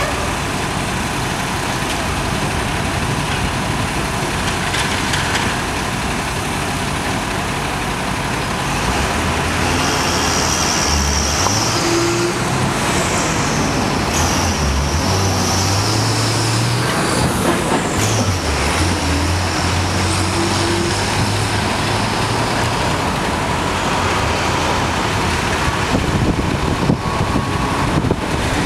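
Heavy diesel engines of a concrete mixer truck and a concrete pump truck running at a concrete pour. From about nine seconds in, an engine revs up and down in steps for roughly fifteen seconds, with a high whine alongside.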